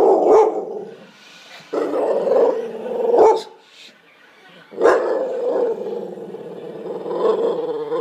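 A Staffordshire bull terrier making long, rough, howl-like grumbling calls in three drawn-out bouts, the last starting about five seconds in. These are attention-seeking noises from a dog that is being ignored.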